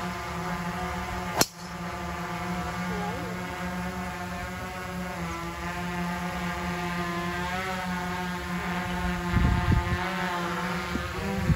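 Golf club striking a ball off the tee about a second and a half in: one sharp, short crack. Under it is a steady low hum, with a few low bumps near the end.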